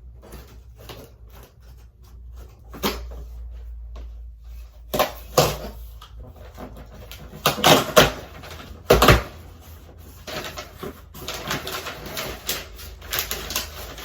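A cardboard shipping package being handled and opened by hand: a series of sharp knocks and scrapes, then a stretch of crackling and rustling from about ten seconds in.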